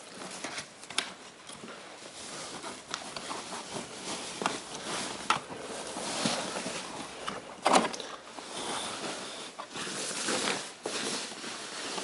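Packaging being handled and pulled off: irregular rustling and scraping with scattered clicks, and a louder knock about two-thirds of the way in.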